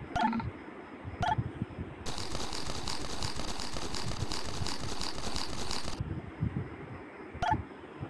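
Tux Paint's program sound effects: short electronic blips as toolbar buttons are clicked, then about four seconds of a dense, crackly rustling hiss while the Grass magic tool paints grass, and one more button blip near the end.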